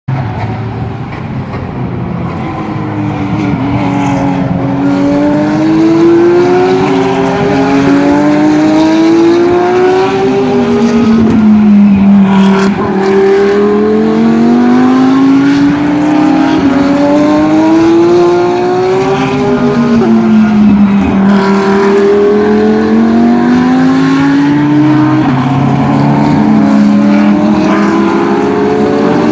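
GT3 race car engines at full throttle accelerating up through the gears, each engine note climbing in pitch and dropping back at every upshift, several cars overlapping. The sound builds over the first few seconds and then stays loud.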